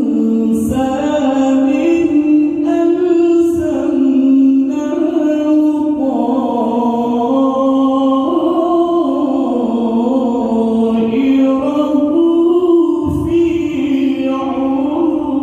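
A Quran reciter's (qari's) voice drawing out a long melismatic chanted phrase, the pitch sliding and turning slowly in an ornamented melodic line with hardly a break.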